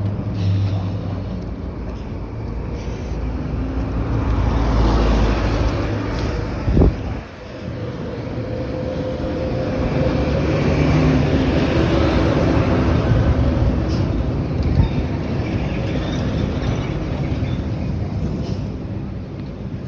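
Road traffic passing close by: a continuous rumble of vehicle engines and tyres that swells and fades as vehicles go past, with a heavy low rumble about four to six seconds in and a single sharp knock about seven seconds in.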